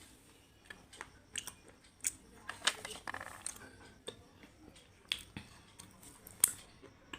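Close-up crunching: a person biting and chewing something hard and brittle, with sharp cracks at irregular intervals and a denser run of crunching about two and a half to three and a half seconds in.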